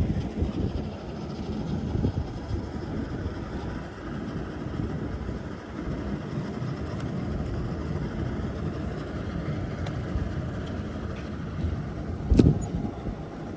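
Wind buffeting the microphone in an uneven low rumble, with a single sharp thump near the end.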